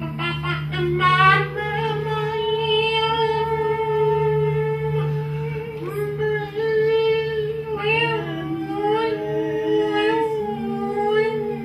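Live music: long, held melodic notes with vibrato over a steady low drone. About two-thirds of the way through, a second, lower line sounds alongside the melody for a couple of seconds.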